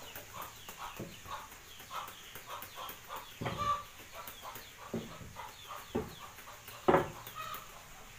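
A wooden paddle turning and scraping freshly cooked rice in a pane basin while a hand fan swishes over it to cool it, in a steady rhythm of about two strokes a second. A few louder knocks of the paddle against the basin come in the second half, the loudest about seven seconds in.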